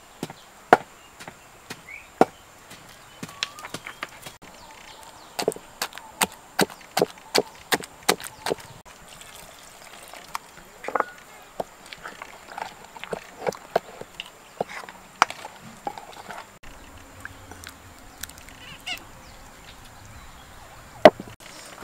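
Wooden pestle knocking in a wooden mortar as ingredients are pounded: sharp wooden knocks, for a few seconds in a quick run of about three a second, then more scattered.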